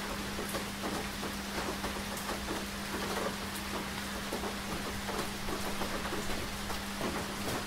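Steady rain falling, with many individual drops tapping distinctly over an even hiss. A steady low hum runs underneath.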